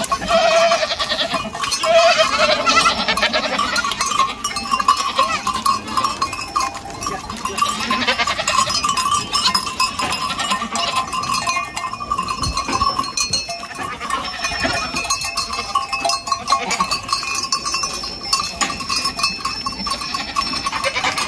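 A herd of goats, nannies and their kids, bleating and calling to each other as the kids rejoin their mothers, with the animals' bells clanking without a break.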